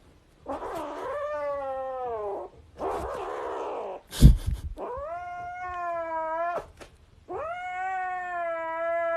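A cat meowing in a series of long, drawn-out calls, about four of them, each lasting a second or two. A single sharp knock comes about four seconds in.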